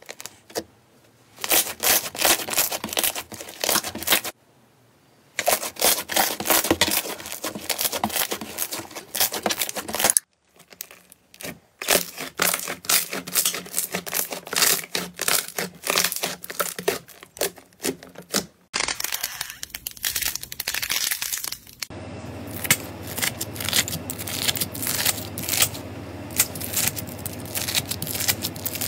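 Slime being squeezed and stretched by hand, making dense crackling and popping sounds. It comes in several separate stretches with short pauses between them, with a steady low hum under the last few seconds.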